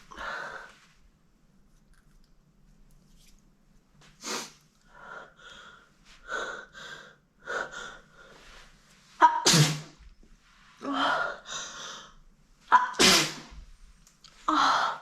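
A young woman sneezing over and over, messy spraying sneezes, with softer short sounds between them; the loudest sneezes come about two thirds of the way in and twice near the end.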